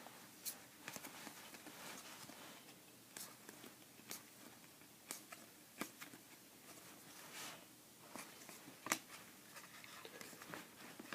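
Faint, irregular clicks and soft rustles of trading cards being flipped through by hand, about a dozen light snaps spread unevenly.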